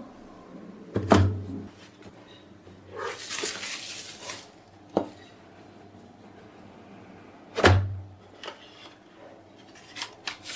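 A smartphone's retail box and packaging being opened and handled: two dull thumps, one about a second in and one near eight seconds, a rustling slide of a second or so around three seconds in, and a few small clicks.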